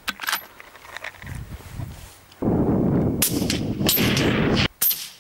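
Rifle shots: a few sharp cracks, about a second apart, over a loud steady rushing noise that starts and stops abruptly.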